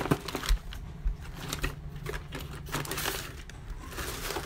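Makeup brushes and cosmetic containers being rummaged through and handled: scattered small clicks, taps and light clatter.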